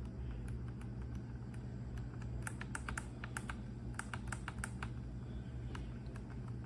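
Rapid, irregular clicking of small plastic buttons or keys, bunched in quick flurries about two and four seconds in, over a steady low hum.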